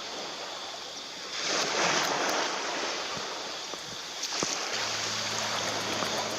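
Waves breaking and washing up a sandy beach, the surf swelling about a second and a half in and again near four seconds. A steady low hum joins about five seconds in.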